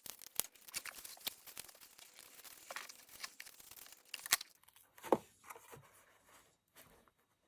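Cardstock pieces being handled and stuck down with red liner tape: paper rustling and crinkling with many small clicks, and a couple of sharper taps about four and five seconds in.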